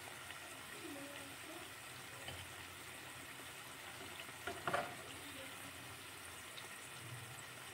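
Mustard-flower and gram-flour fritters deep-frying in hot oil in a kadai, a quiet steady sizzle. A brief metallic clatter of the utensil against the pan about four and a half seconds in.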